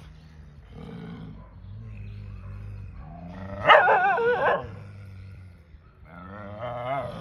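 Two dogs growling at each other in a low, steady rumble, breaking into a loud, wavering bark-snarl about halfway through that lasts almost a second, and a shorter one near the end.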